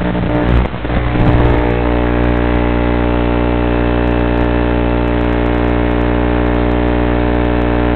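Electrical interference buzz on the tricopter's FPV audio: a steady drone of many fixed tones that persists with the motors disarmed. A brief irregular jumble about half a second in, as the craft comes down, breaks it before it settles.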